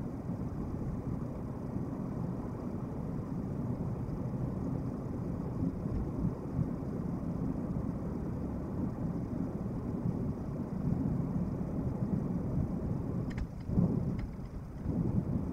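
Steady low rumble of vehicle noise, with a short knock near the end.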